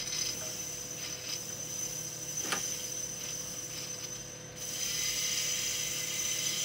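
Small electric micro-drill running with a steady whine as a 3 mm drill grinds into a water-wetted ruby ball, with a single click about two and a half seconds in. About four and a half seconds in the drill gets louder and fuller as its speed is turned up.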